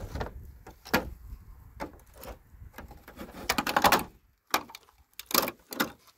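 Scattered clicks, knocks and scrapes of a screwdriver and hands working at the plastic back cover of a flat-screen TV, with a longer stretch of scraping and rattling about three and a half seconds in.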